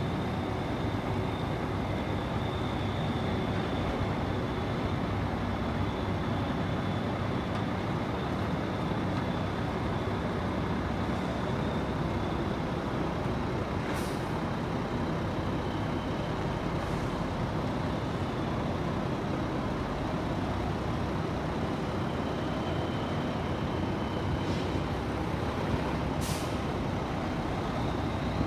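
1997 Mack RD690S cement mixer truck's diesel engine running steadily as the truck drives slowly. A short air-brake hiss comes about halfway through and another near the end.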